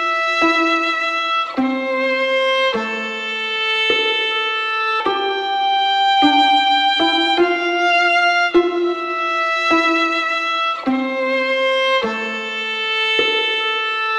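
Background music: a melody of held notes, each starting sharply, changing about once a second.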